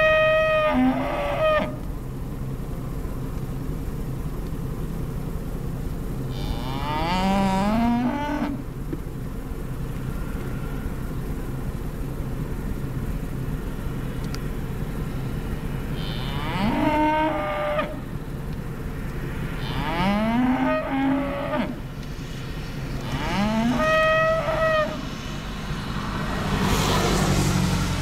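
Cattle mooing loudly, about five drawn-out calls a few seconds apart, each rising in pitch.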